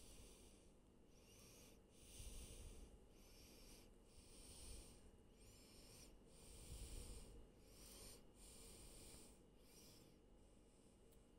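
Ceiling fans running, heard faintly as a rhythmic airy whoosh about once every three-quarters of a second, with a low rumble twice.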